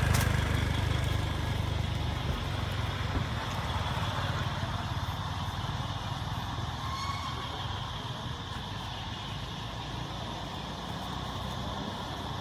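Low engine rumble of an unseen motor vehicle, slowly fading over the first several seconds.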